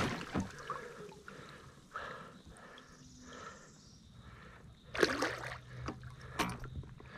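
Water sloshing and trickling beside a kayak as a hooked bowfin fights near the landing net. About five seconds in comes a sharper splash as the fish breaks the surface, and a smaller one follows.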